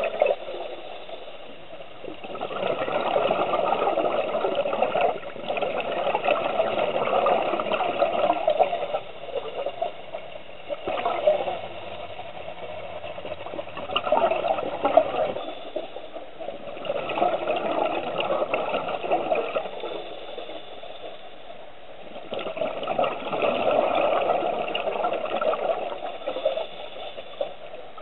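Scuba diver breathing through a regulator underwater: bubbling bursts of exhaled air lasting a few seconds each, alternating with quieter stretches as the diver breathes in.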